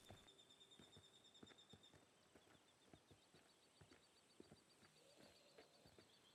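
Near silence: faint woodland ambience of high, rapidly repeated chirping, with scattered soft clicks of footsteps on dry ground.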